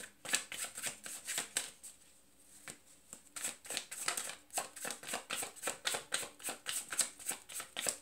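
A deck of tarot cards being shuffled by hand: a quick run of cards slapping and sliding against each other, several strokes a second. It stops briefly about two seconds in, then carries on. It is shuffled to draw a clarifier card.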